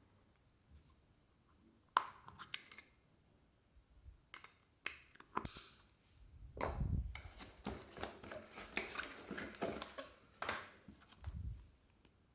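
Packaging of a laser measure being handled: a sharp click about two seconds in, a few scattered taps, then crinkling and rustling with a couple of low thumps from about six seconds until near the end.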